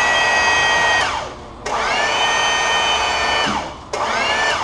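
Hydraulic pump motor driving the jacks that bend a truck's front axle, run in short bursts to push the ram. It whines steadily and winds down about a second in. It starts again with a rising whine, stops a little past the middle, and makes one more short run near the end.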